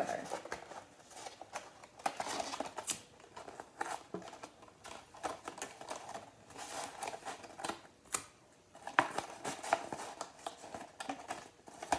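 Sheets of printed paper rustling and crinkling, with scattered light clicks and taps, as two paper halves of a model are handled, pressed together and taped along the seam.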